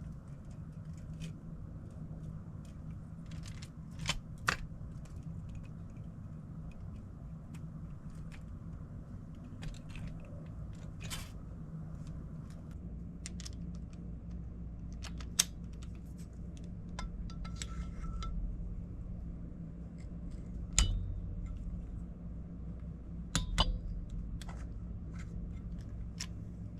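Light metallic clicks and clinks with a few sharper knocks: a ringed piston being worked into a Husqvarna FC250 cylinder bore by hand, without a ring compressor. A steady low hum runs underneath.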